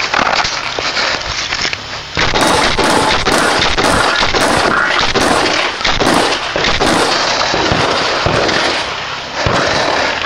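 Shotgun firing a rapid string of shots, about two to three a second, beginning about two seconds in, with a brief pause near the end before a couple more shots.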